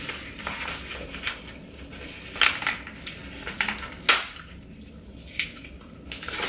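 Cardboard packaging and the desk's hard parts being handled and shifted, with crinkly rustling and scattered sharp clicks and knocks. The loudest knock comes about four seconds in.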